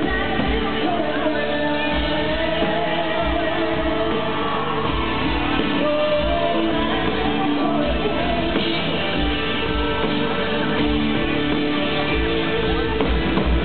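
Live arena rock band, with electric guitar and drums, playing while a woman sings lead into a microphone, heard from the audience with the hall's echo.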